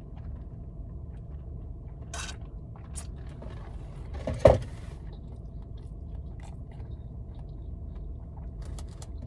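Eating and drinking mouth sounds: chewing and sipping strawberry lemonade through a straw, with short sounds about two and three seconds in and a louder brief one about four and a half seconds in, over a steady low hum.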